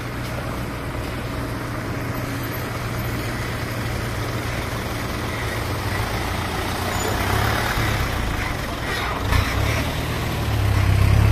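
Heavy diesel engine running steadily, with a low drone that grows louder near the end. A single sharp knock about nine seconds in.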